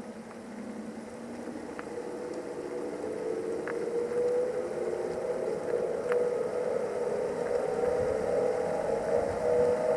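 Tesla Model S 85 rear drive unit whining under low-speed driving, several tones rising slowly in pitch and growing louder as the car gathers speed. This is the drive-unit noise the owner is documenting. A few faint ticks sound over it.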